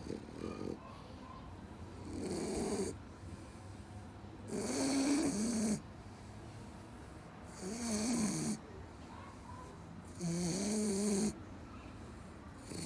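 A sleeping pet snoring: four slow, even snores, each about a second long with a wavering pitch and a breathy hiss, coming about every two and a half to three seconds.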